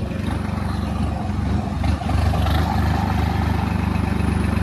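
Swaraj tractor's diesel engine running steadily while the tractor is driven along, heard from the driver's seat, with a brief dip just before halfway.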